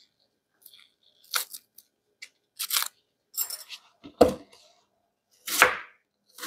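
Papery onion skin tearing as an onion is peeled, then a kitchen knife cutting down through the onion onto a cutting board, a cut about once a second from about four seconds in.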